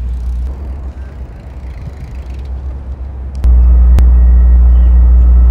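Low, steady outdoor rumble, such as wind on the microphone or distant traffic. It jumps suddenly louder about two-thirds of the way through, with a faint hum added, and a single sharp click comes just after.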